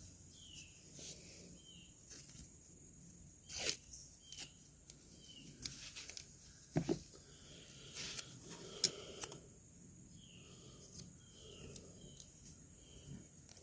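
Faint rustling and scattered clicks of hands wrapping rubber tape around wires of a wiring harness, with a few louder handling knocks. Short high chirps repeat faintly in the background.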